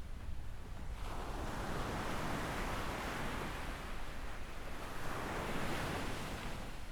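Small waves breaking and washing up a sandy shore. A wash of surf swells about a second in, holds for several seconds and eases near the end.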